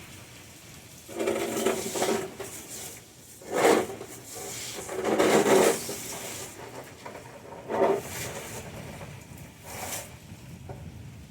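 A series of about five scraping, clattering strokes of differing length over the steady hiss of rain, from clearing away storm leaves.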